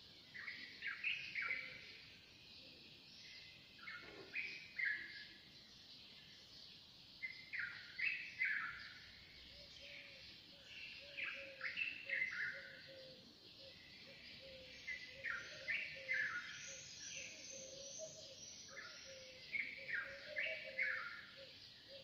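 Early-morning chorus of songbirds: one bird sings short phrases of loud, clear sliding whistles every three to four seconds over a constant high twittering from other birds. A low, repeated note joins in from about halfway.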